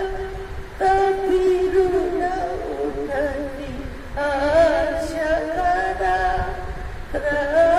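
An elderly woman singing a Marathi hymn solo and unaccompanied, in long held notes, with new phrases starting about one, four and seven seconds in.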